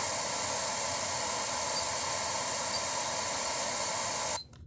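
FM radio static from a Pioneer DEH-3UB car stereo tuned off-station: a steady, even hiss. It cuts off suddenly near the end as the tuner starts its automatic best-stations-memory (BSM) search.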